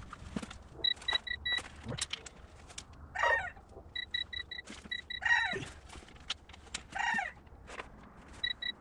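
Cylinder head bolts being tightened with a wrench: scattered sharp clicks, quick electronic beeps in groups of four a few times, and several short squeals that fall in pitch.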